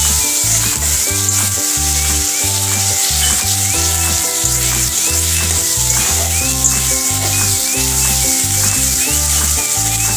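Onions with ginger-garlic and chilli paste sizzling steadily in hot mustard oil in a kadai, stirred with a spatula as they fry down. Background music with a steady low beat plays underneath.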